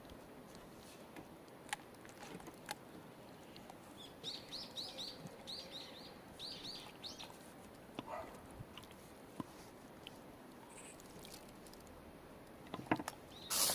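A small bird chirping outdoors, a quick run of about eight short, high notes in the middle, over faint scattered clicks and knocks.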